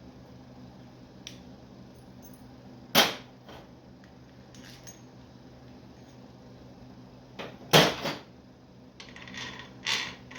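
Sharp metallic knocks and clicks from bolts and shifter parts being handled: two loud knocks a little under five seconds apart, a few faint ticks, then a quick rattle of clicks near the end.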